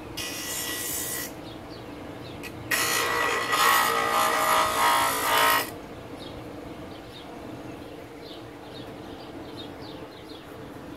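Bench grinder running steadily while a small wooden starfish cut-out is pressed against its wheel in two bursts of rough grinding, a short one at the start and a longer one of about three seconds. After that the grinder keeps running with no workpiece on it.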